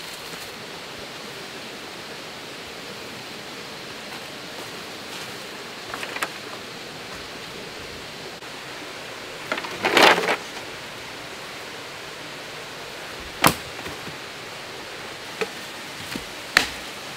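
Steady background hiss of the jungle, with sharp knocks of a machete chopping wood, several in the last few seconds. About ten seconds in comes a single louder rustling noise lasting about half a second.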